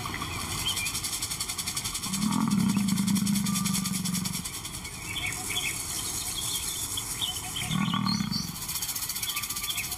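A lion growling low twice: a long growl of about two seconds, then a shorter one near the end.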